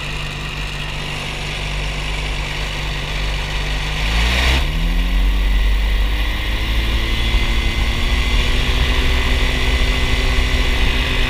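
Ultralight aircraft engine and propeller running steadily at idle, then revving up over about half a second around four seconds in and running on louder at the higher speed.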